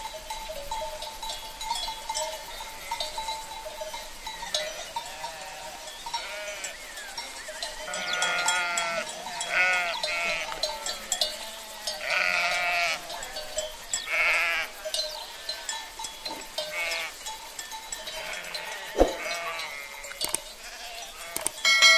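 Sheep bleating, several calls in a row through the middle of the stretch, with a sharp knock near the end.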